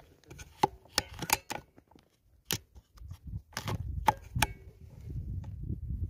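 Irregular sharp clicks and knocks from an air rifle and its tripod being handled and swung, with a low rumble building from about halfway in.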